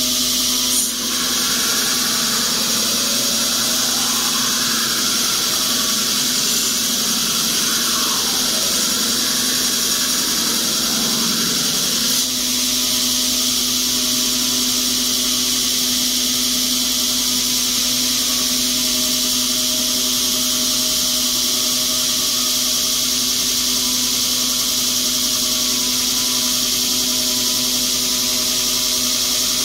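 Brodbeck Ironworks 2x72 belt grinder running with a 40-grit Combat Abrasives belt, grinding the AEB-L stainless blade of a chef knife: a loud steady hiss and hum. For the first twelve seconds or so a rasping grind rises and falls in pitch over it, with a short knock near its start and end, then the belt runs on evenly.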